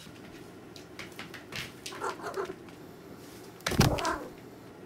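A cat scrambling about on a hallway floor with a short meow about two seconds in, then a loud thump near the end.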